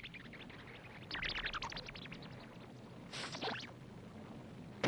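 Faint fight sound effects: a brief crackle of rapid ticks about a second in and a short hiss a little after three seconds, over a low steady hum.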